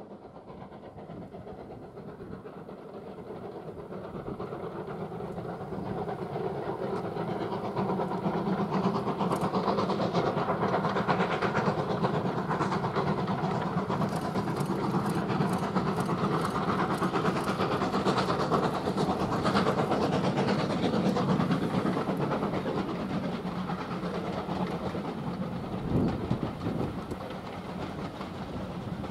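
Steam locomotive hauling a train of coaches past. The sound grows louder over the first several seconds, holds steady while the engine and coaches go by, then eases as the last coaches pass, with a single thud near the end.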